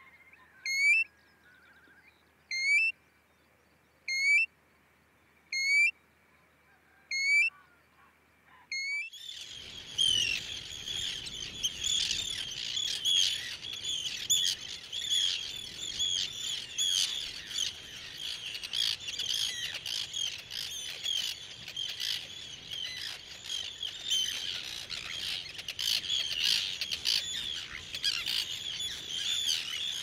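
A European golden plover gives a single plaintive rising whistle about every second and a half. About nine seconds in, a dense, continuous chorus of harsh, grating calls from a colony of Arctic terns takes over.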